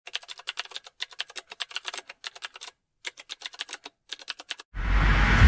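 Computer keyboard typing: quick sharp key clicks, about seven a second, in short runs with brief pauses, stopping about four and a half seconds in. Just before the end, a louder rushing swell with a low rumble starts.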